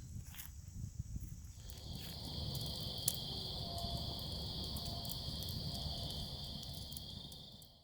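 Insect chorus outdoors: a steady high buzz that sets in about two seconds in and holds, over a low rumbling background with a few light clicks.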